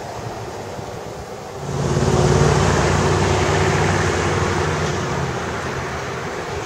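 An engine running: a low hum under a wide rushing noise that comes up suddenly a couple of seconds in, then slowly fades.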